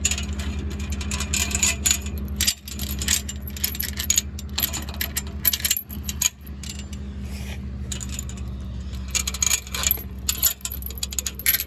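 Farm tractor engine running steadily, with repeated metallic clinks and rattles from the loose chains and hitch parts on its drawbar.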